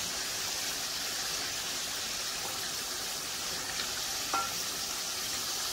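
Chicken pieces deep-frying in hot oil, a steady sizzle, early in the fry while the chicken is still pale, with a wooden spatula stirring them. A light tap about four seconds in.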